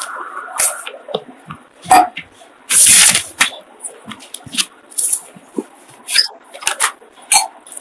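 Handling noise from a phone microphone on a video call: irregular clicks, knocks and rustles, with a loud rustling burst about three seconds in that lasts around half a second.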